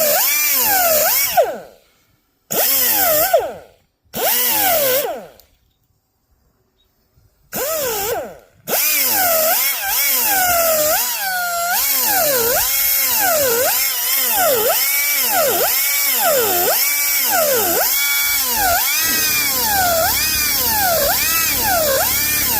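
High-pitched handheld power tool cutting into willow wood. Its whine sags and recovers in a steady rhythm about once a second as it is worked back and forth under load. It stops and restarts several times in the first nine seconds, with one pause of about two seconds, then runs without a break.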